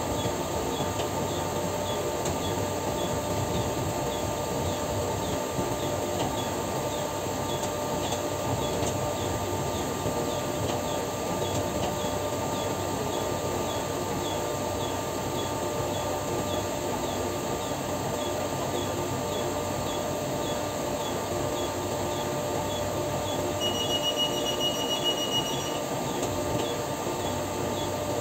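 Steady drone of machinery running, with several steady hum tones and a light, regular ticking about one and a half times a second. A high electronic beep sounds for about two seconds near the end.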